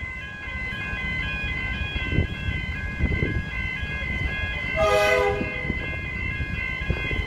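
Level-crossing warning bells ring continuously over the low rumble of an approaching electric suburban train. About five seconds in, a short horn blast sounds.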